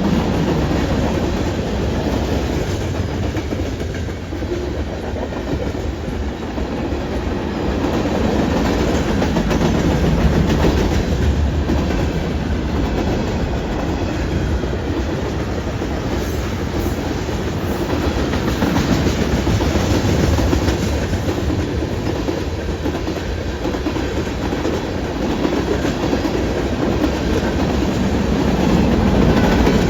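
Freight train rolling past at close range, its steel wheels clattering over the rails in a steady, rumbling run of railcars.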